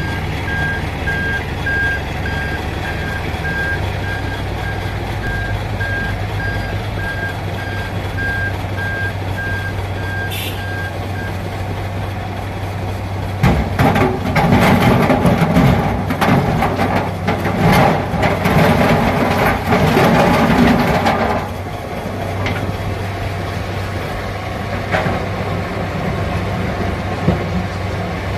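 Komatsu PC200-7 hydraulic excavator's diesel engine running steadily, with a reversing alarm beeping repeatedly through the first ten seconds or so. About halfway through, the machine gets louder for some eight seconds, working harder with clattering, then settles back to a steady run.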